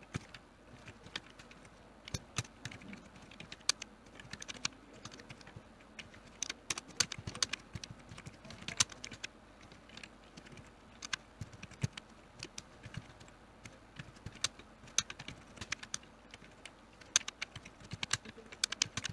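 Typing on a computer keyboard: irregular runs of quick key clicks, with short pauses where the strokes thin out.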